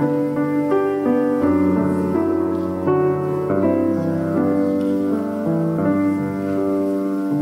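Slow instrumental keyboard music: soft sustained chords that change about once a second, with no singing.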